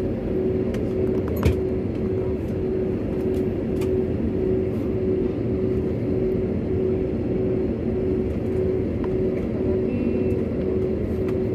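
Airliner cabin noise while taxiing: the jet engines at idle and the cabin air make a steady rumble with a constant hum. There is a single sharp click about a second and a half in.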